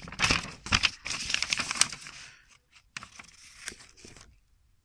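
Thin printed paper invoice sheets rustling and crinkling as they are handled and flipped, densest in the first two seconds, then a few scattered crackles as the pages settle.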